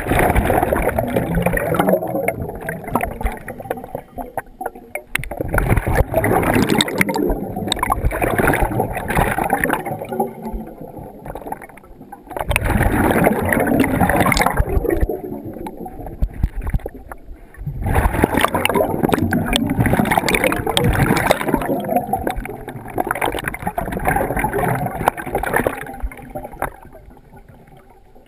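Scuba regulator exhaust bubbles rushing past the helmet camera as the diver breathes out, in long bursts several seconds apart with quieter breaths in between, dying down near the end.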